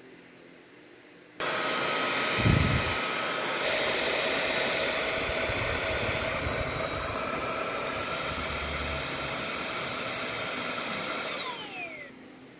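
Xiaomi Dreame V9P cordless stick vacuum running on its lowest speed setting: the motor starts abruptly about a second in with a steady high whine over a rush of airflow, and a brief low thump shortly after it starts. Near the end the whine falls in pitch as the motor winds down and stops.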